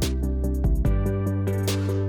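Background music with a steady beat: sustained chords over a deep bass, quick regular high ticks, and a cymbal-like hit near the start and again near the end. The bass and chords change about halfway through.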